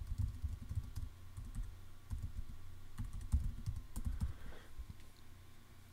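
Typing on a computer keyboard: irregular runs of keystrokes heard as soft low thuds with light clicks, thinning out near the end.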